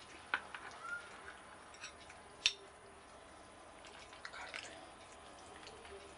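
A ladle scooping vegetable stew from an enamel pot into a bowl: wet dripping and squishing, with a few sharp clicks of the ladle against the dish, the loudest about two and a half seconds in.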